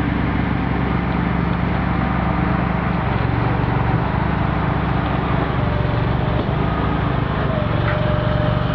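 Heavy-haul truck's diesel engine running steadily as the superload rig rolls slowly past, with the rumble of its multi-axle trailer tyres on the road; the engine note shifts about three seconds in.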